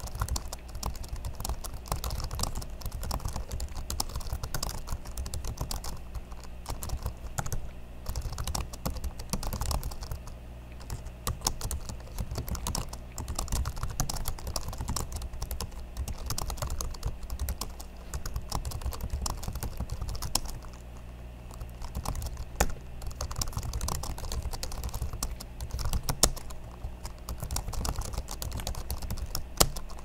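Fast, continuous typing on a well-worn 2007 MacBook Pro laptop keyboard: a dense run of light key clicks, with a few short pauses and one sharper click near the end.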